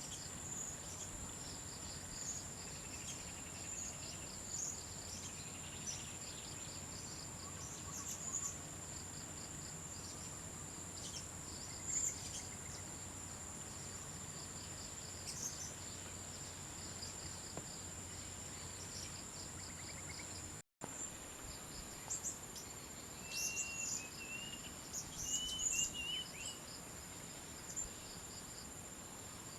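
Steady high-pitched drone of crickets or similar insects, with scattered short bird chirps over it and a run of brief rising chirps near the end. The sound drops out for an instant about two-thirds of the way through.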